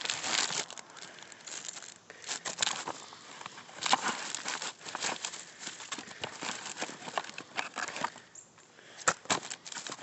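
Gloved hands rummaging through dumpster trash: plastic bags and cardboard crinkling and rustling in irregular bursts, with a few sharper crackles about four seconds in and near the end.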